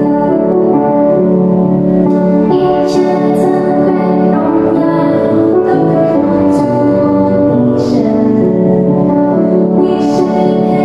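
Two women singing a Mandarin Christian praise song together over a keyboard-style instrumental backing.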